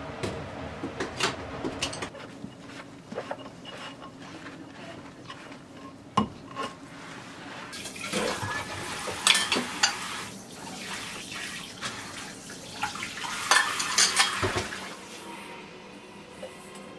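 Washing up at a stainless steel kitchen sink: dishes and utensils clinking and knocking against each other and the sink, with water splashing at times. Two louder, busier stretches come in the middle and near the end.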